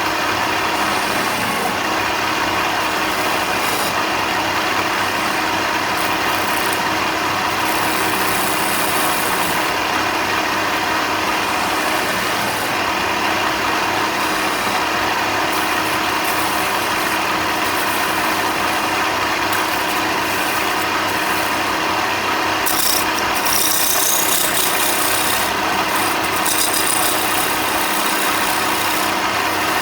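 Electric power tool running steadily while working timber, with a continuous motor hum and a brighter, higher-pitched stretch a little after twenty seconds in.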